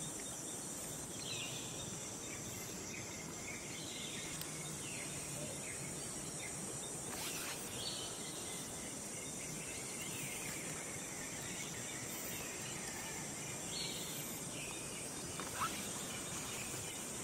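Outdoor ambience: a steady high-pitched insect drone, with repeated short falling bird calls over it and one sharp click near the end.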